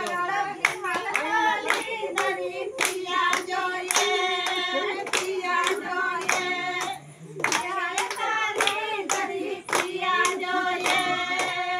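A group of women singing a song together, with hand claps keeping a steady beat about twice a second. The singing and clapping break off briefly about seven seconds in, then start again.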